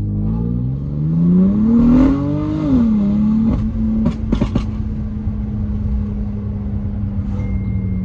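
BMW M3 F80's S55 twin-turbo straight-six with an equal-length exhaust accelerating hard, its note rising for about two and a half seconds, then dropping on an upshift. A few sharp cracks follow about a second later, and the engine then holds a steady note.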